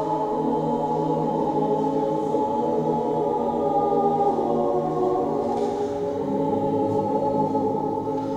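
Mixed choir of women's and men's voices singing in harmony, slow sustained chords with long held notes.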